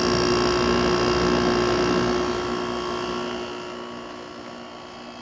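Haier HWF05XCA 5000 BTU window air conditioner running on cool: a steady hum of its fan and Matsushita rotary compressor with a few constant whining tones, very quiet. The sound grows fainter about three seconds in.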